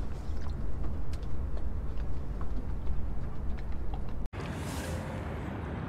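Low, steady rumble of a small boat's motor running, with a few faint ticks. About four seconds in it cuts off abruptly at an edit, giving way to a quieter, lighter background.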